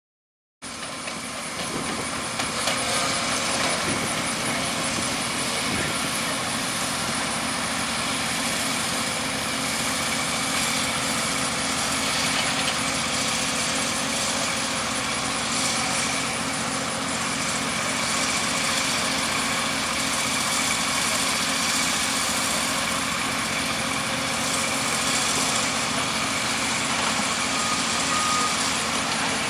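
Steady construction-site noise with engines of heavy equipment running, starting about half a second in.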